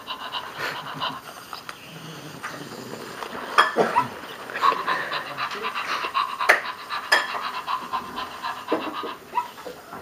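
Zoomer robot dog's speaker playing rapid electronic dog panting, with a few sharp knocks.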